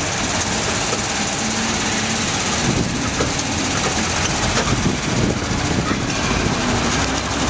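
Small open tourist road train running along a city street, its engine running and the carriages rattling and jolting, with a few knocks about three to five seconds in.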